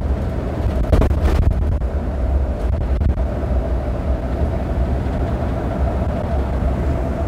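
Cabin noise of a Neoplan Tourliner coach cruising at motorway speed: a steady low drone from the diesel engine and the road, with a steady mid-pitched hum over it and a short knock about a second in.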